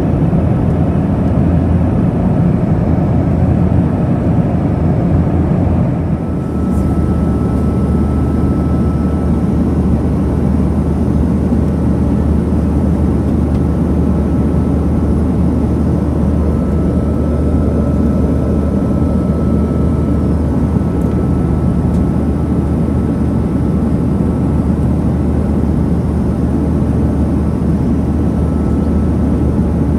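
Steady low drone inside the cabin of a Boeing 737-900ER in cruise flight, from its CFM56-7B engines and the airflow, heard from a seat over the wing. A faint steady high whine joins about seven seconds in.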